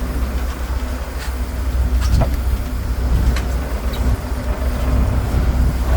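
Fishing boat's engine running steadily, a deep, even rumble, with a couple of short knocks about one and two seconds in.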